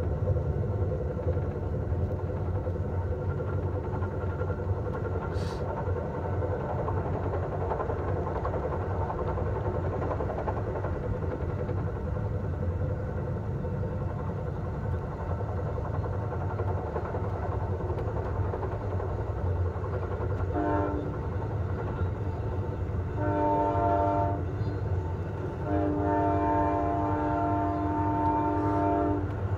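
Steady low rumble of a passenger train running, heard from inside a car. In the last third the locomotive's horn sounds three times: a short blast, a longer one, then a long one of about three seconds.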